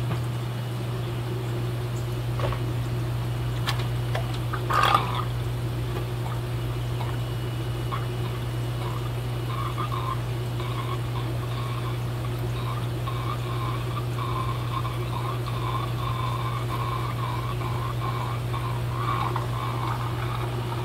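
Aquarium water splashing and trickling as fry are moved between tanks, with a short louder splash about five seconds in and a wavering trickle from about nine seconds on, over a steady low hum of fish-room equipment.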